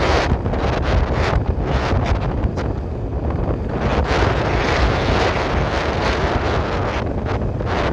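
Wind buffeting a phone microphone on a moving motor scooter, a dense low rumble and hiss, with road and traffic noise beneath.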